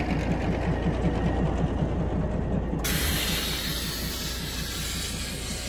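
Darjeeling Himalayan Railway narrow-gauge diesel locomotive idling, a low steady hum with a fast, even beat. About three seconds in a steady hiss starts.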